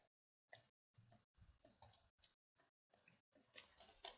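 Near silence broken by about a dozen faint, short clicks at irregular intervals, typical of computer-mouse clicks.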